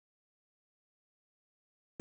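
Silence: the audio drops out completely. Loud noise cuts in abruptly at the very end.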